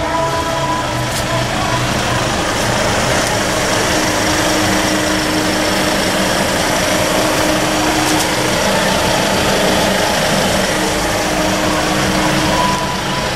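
Hyundai H-1's 2.5-litre CRDi four-cylinder turbodiesel idling steadily, heard from outside the van.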